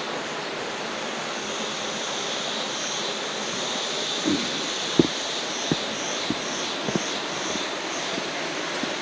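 Steady rushing outdoor noise, with a high pulsing buzz over it in the middle and a run of light knocks about every half second from around four seconds in.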